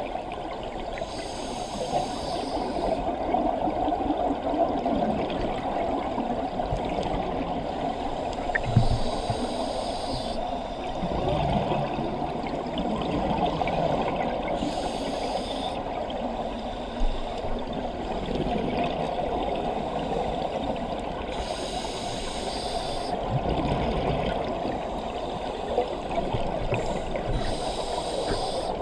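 Scuba diving breathing heard underwater through the camera housing: a hiss from the regulator on each inhalation, five times at about six-second intervals, between exhalations of bubbles over a steady wash of water noise.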